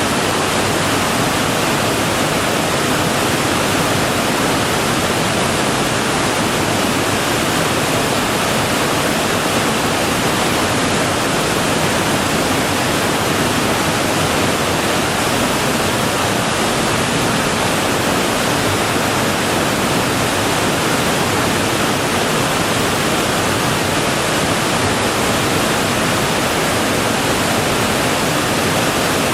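Waterfall: a steady, unbroken rush of falling water, loud and even throughout.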